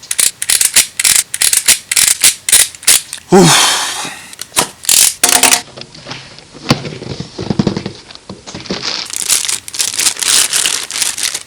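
Cardboard box and plastic packaging being opened by hand: a dense run of sharp crackles, crinkles and tearing, with a longer rasp about three and a half seconds in.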